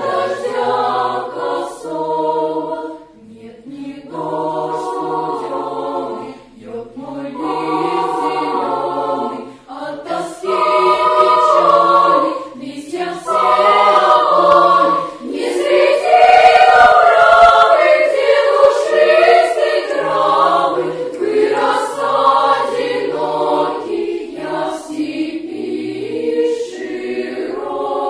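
Children's choir of girls and boys singing, in phrases broken by short pauses about 3, 6 and 10 seconds in. The loudest passage comes a little past the middle.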